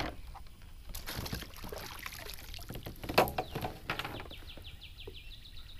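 Water splashing beside a kayak as a caught bass is put back into the river. There are splashes about a second in and a louder one about three seconds in, then a fast run of short high chirps near the end.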